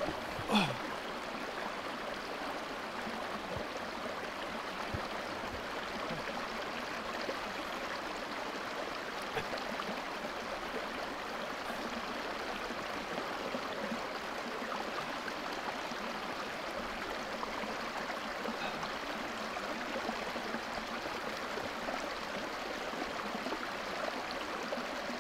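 A stream babbling and gurgling steadily, with one brief louder sound about half a second in.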